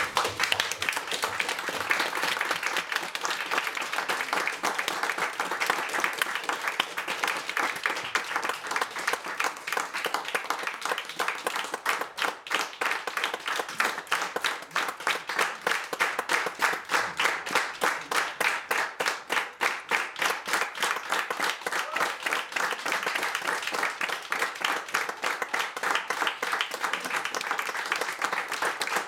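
A small audience applauding, a dense patter of many hands clapping. For a stretch in the middle the claps fall into a more even beat.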